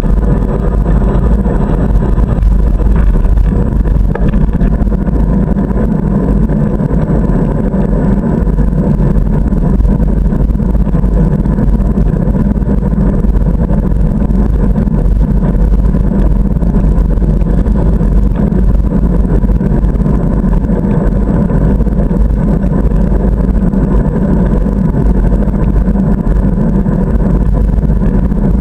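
Steady wind and road noise picked up by a camera mounted on a moving bicycle: a constant, muffled rumble.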